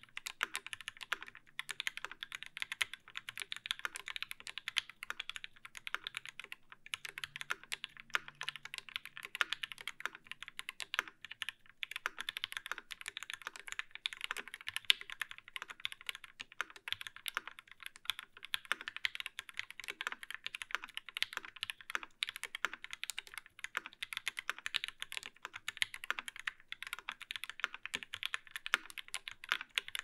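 Fast, continuous typing on a Kyuu custom mechanical keyboard with a brass plate, lubed C³ Tangerine R2 linear switches with UHMWPE stems, GMK keycaps and no sound dampening: a dense stream of keystroke clacks with only brief pauses.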